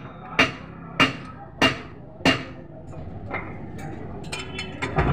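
Four sharp, evenly spaced knocks, about one every two-thirds of a second, stopping a little over two seconds in, followed by a few lighter clicks.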